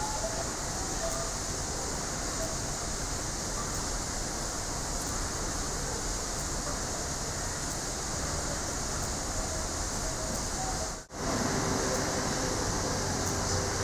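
Steady background hiss of enclosure ambience, with a few faint, indistinct sounds; the sound drops out for a moment about eleven seconds in, where the shot cuts.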